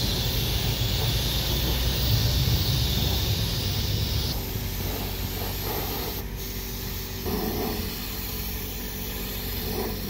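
Compressed-air gravity-feed spray gun hissing steadily as it sprays paint onto a sheet-metal panel, cutting off abruptly about four seconds in. A quieter steady low hum is left behind.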